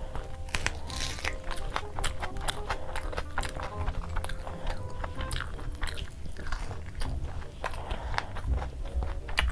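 Close-miked eating: a person chewing and biting mouthfuls of puri (fried bread) and curry, with many irregular crunches and wet mouth clicks.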